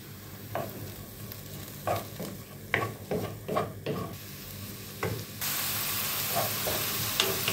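Finely chopped onion sizzling in olive oil in a nonstick frying pan while a spoon stirs it, scraping across the pan several times. A bit over five seconds in, the sizzle jumps to a louder, steady hiss as the onion fries.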